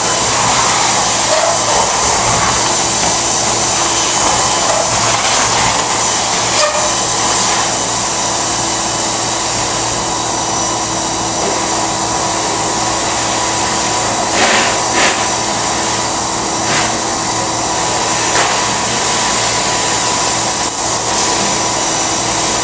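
Drum-style canister vacuum cleaner running steadily and loudly, its motor noise even, with a faint hum and a few brief knocks as the hose is moved.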